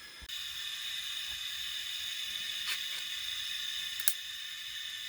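Camp stove burner hissing steadily under a cooking pot of rice; the hiss comes in abruptly a moment in, with a couple of faint clicks.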